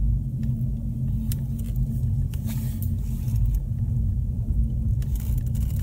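Car rolling slowly over snow on Kumho WinterCraft SUV Ice WS31 studded winter tyres, heard from inside the cabin: a steady low rumble of engine and tyres with no throttle applied, and scattered sharp clicks and crunches, more of them near the end.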